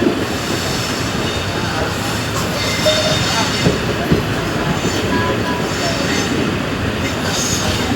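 Passenger train running, heard from on board: a steady rumble of wheels on the track, with a few sharp clicks and faint high wheel squeals.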